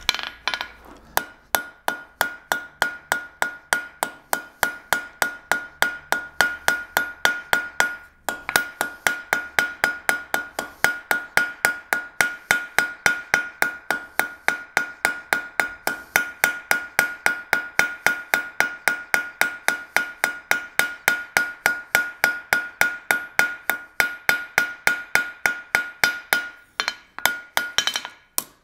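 Cross-peen hammer striking a red-hot steel horseshoe on an anvil in a fast, even rhythm of about four blows a second, thinning out the metal; each blow rings the anvil at the same high note. The hammering breaks off briefly about eight seconds in and stops shortly before the end.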